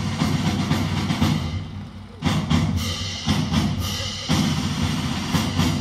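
Live orchestra music heavy with percussion, with drum strokes landing about once a second after a brief drop in level about two seconds in.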